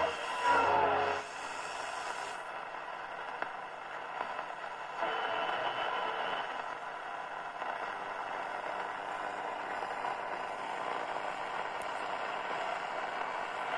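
Telefunken Bajazzo TS205 radio tuning across the top of the AM medium-wave band: about the first second is a station's audio with gliding heterodyne whistles, then it drops to steady static hiss with weak signals faintly underneath.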